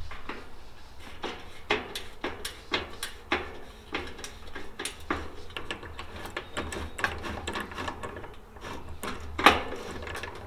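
A screw being driven in by hand with a screwdriver: irregular clicks and scrapes of metal, a few a second, with a louder knock about nine and a half seconds in.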